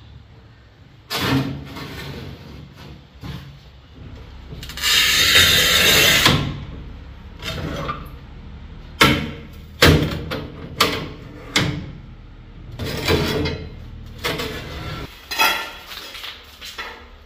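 Irregular knocks and clatters of hard objects being handled, with a loud rush of noise lasting about a second and a half about five seconds in, and a quick run of sharp knocks about nine to twelve seconds in.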